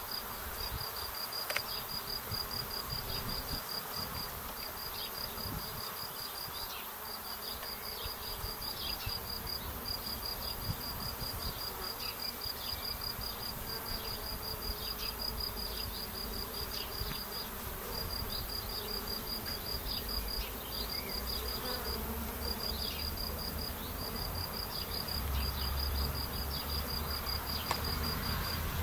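Honeybees buzzing as they fly in and out of a hive entrance. Over it runs a steady high chirping: a rapid string of ticks in runs of a few seconds, with short breaks.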